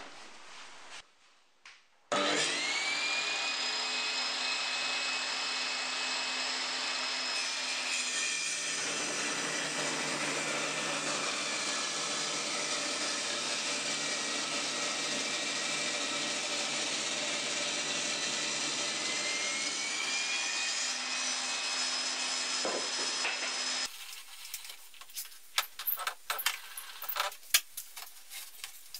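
Homemade table saw starting up with a rising whine, then running steadily while a board is ripped along the fence, the pitch sagging slightly under load and rising again as the cut finishes. The sound stops abruptly near the end, followed by wood sliding and knocking on the saw table.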